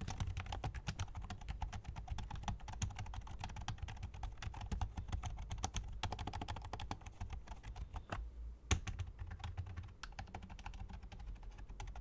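Typing on a Redragon Karura membrane gaming keyboard with low, flat chiclet-style keys: a quick, steady patter of quiet key presses, with one louder keystroke about nine seconds in.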